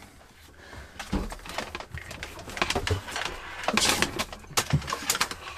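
Handling noises of a thin electrical cable being fed through a boat locker: scattered clicks, knocks and rustling, with a short scraping rush just before four seconds in.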